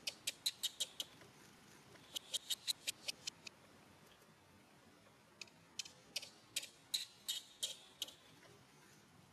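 Newborn macaque giving short, high-pitched squeaks in three runs, the last run the longest and most spread out.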